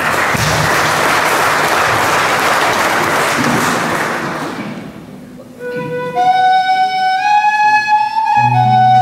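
Audience applauding for about five seconds. Then a whistle begins a slow, lilting melody of held, gliding notes. Low accompanying notes come in near the end.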